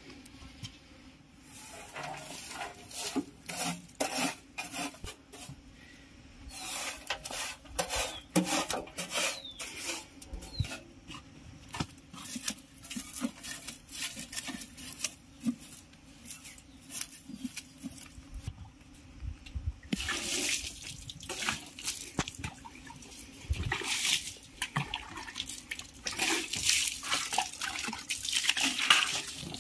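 Water splashing and a stiff brush scrubbing mud off a power tiller's metal engine and body in irregular strokes, louder and busier near the end.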